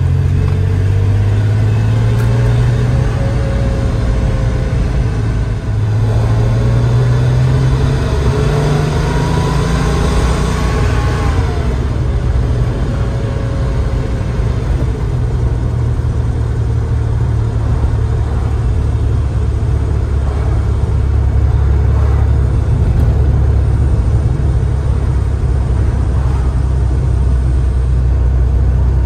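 1988 Porsche 911 Turbo's turbocharged air-cooled flat-six heard from the cabin under way: the revs climb, dip briefly about six seconds in as the gear changes, and climb again until about eleven seconds in. It then settles to a steady cruise with road noise.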